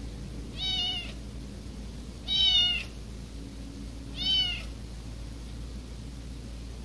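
A kitten mewing three times, short high-pitched mews that rise and fall in pitch, about two seconds apart; the middle mew is the loudest and longest.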